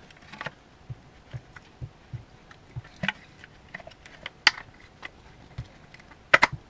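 Scattered plastic clicks and knocks as an electric bilge pump's housing is worked loose from its strainer base, the sharpest near the end.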